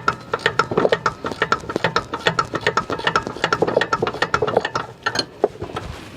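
Ratcheting wrench clicking rapidly, about five clicks a second, as it spins out a loosened brake caliper bracket bolt. The clicking stops about five seconds in.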